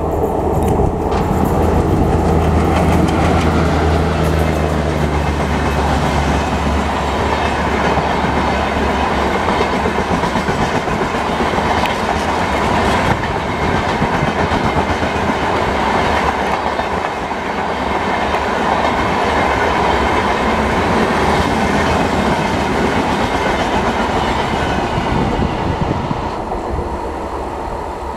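A diesel-hauled express passenger train passing at speed. The locomotive's engine drone is heard over the first several seconds, then fades into the steady rush and clickety-clack of the coaches' wheels rolling past.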